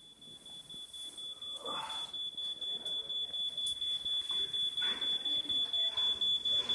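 Smoke alarm sounding a single shrill tone, growing steadily louder as it warns of a fire.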